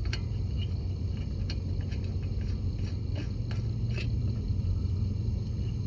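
A car engine idling steadily, with scattered light metallic clicks of lug nuts being threaded onto the wheel studs by hand.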